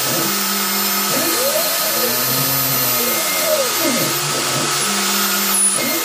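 Home-built CNC router running, its spindle giving a steady whirring hiss while the stepper motors whine in repeated rising and falling glides as the axes speed up and slow down.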